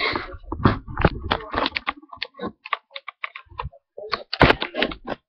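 Handling noise from a webcam being moved and bumped: a rapid, irregular run of clicks and knocks, some with dull thuds. There is a short pause about four seconds in, then a last cluster.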